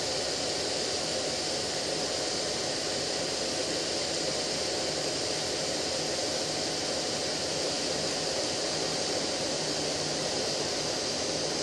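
Desktop FDM 3D printer printing, its cooling fans running: an even, steady hiss with a faint steady hum underneath.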